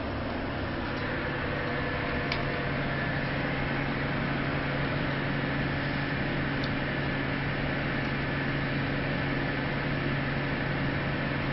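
Steady machinery drone of the inland cargo ship MS Otrate under way, heard inside the wheelhouse: an even low hum with a few fainter higher tones over a steady hiss.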